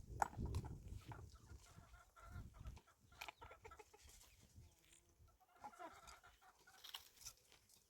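Chickens clucking faintly, with a few soft clicks.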